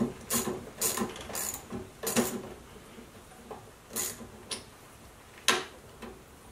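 A 7/16 wrench working the drive-linkage adjustment bolt on a Toro Recycler mower's handle, loosening it to take up slack in the self-propel drive. It gives a run of short metallic clicks, quick at first and then a few spaced-out ones, the loudest about five and a half seconds in.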